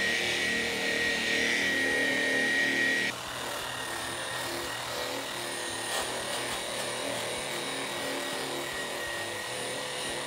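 Angle grinder with a porous paint-stripping disc running against a steel car door, grinding the paint down to bare metal. A steady high whine sits over the grinding noise for the first three seconds, then the sound drops a little quieter and carries on steadily.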